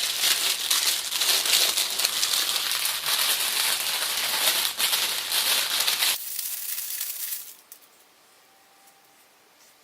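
Loud crinkling, rustling noise that cuts off sharply about six seconds in, then fades out about a second and a half later.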